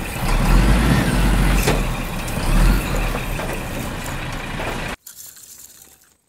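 Heavy truck engine running with a deep rumble, cutting off abruptly about five seconds in and leaving only faint background noise.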